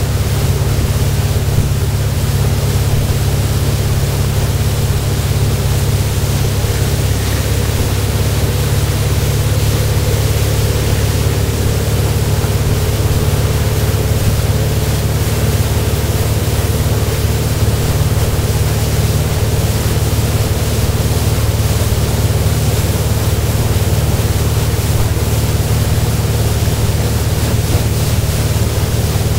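MasterCraft wakeboard boat's inboard engine running steadily at towing speed, with wind rushing over the microphone and the wake churning behind the boat.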